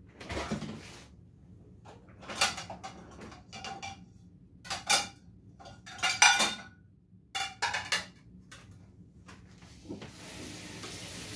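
Dishwasher door pulled open, then a series of sharp clatters as plates are knocked and set into the dishwasher rack. Near the end a kitchen tap starts running.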